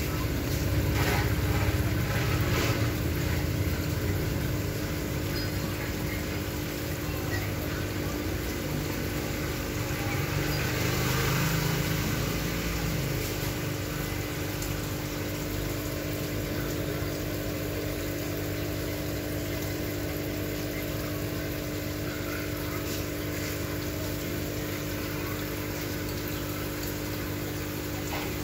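Aquarium pump running: a steady hum with moving water, a little louder for the first few seconds and again around ten to thirteen seconds in.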